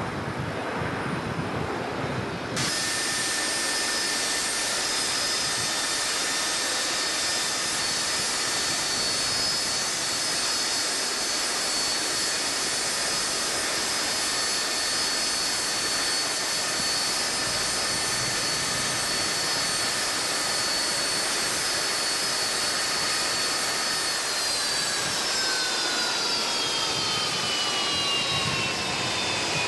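Jet airliner engines with a steady high whine over a rushing noise; over the last few seconds the whine drops steadily in pitch.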